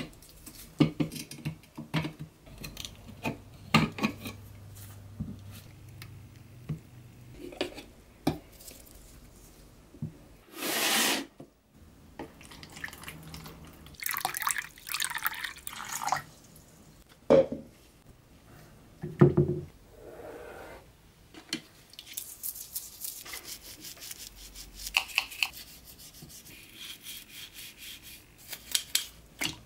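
Bench work on a rusty pressed-steel toy truck: small clicks and taps of metal and plastic handling. Liquid is then poured from a plastic jug into a plastic tub, about halfway through. In the last third a toothbrush scrubs the parts in foamy liquid with quick, scratchy strokes.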